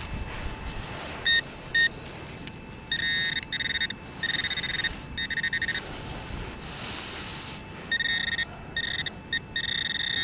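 Metal-detecting pinpointer probed into the dig hole, beeping on the buried target: two short beeps, then runs of rapid pulsing beeps that come and go as the probe is moved near the find.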